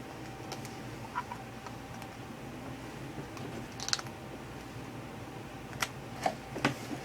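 Light, scattered handling clicks and rubs, a few spread over several seconds, as a rubber glove is stretched tight over a plastic medicine bottle, over a faint steady hum.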